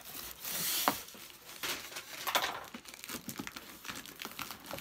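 Cardboard shipping box being opened by hand: flaps pulled back and rubbing against each other, with a short rasp in the first second, a sharp click just before one second in, and irregular crinkles and scrapes after.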